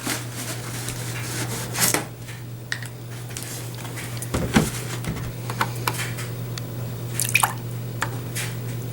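Milk spooned by the tablespoon into a mug: small pours and drips, with a spoon clinking against the cup now and then, over a steady low hum.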